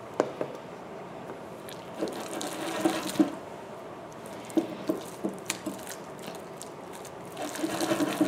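Homemade glue-and-liquid-starch slime squelching and popping wetly as a hand squeezes and kneads it in a glass bowl, in three spells of about a second each. A sharp click comes just after the start.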